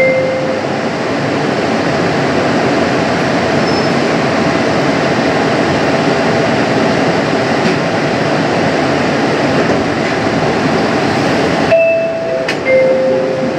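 Bombardier Innovia APM 100 automated people-mover car running slowly along its guideway, with a steady rushing hum and a faint steady tone. About twelve seconds in, the noise changes and a few short beeping tones sound.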